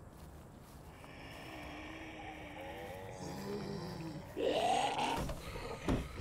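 Low guttural groaning and moaning from people acting as zombies, swelling into one loud moan about four and a half seconds in, with a sharp thump near the end.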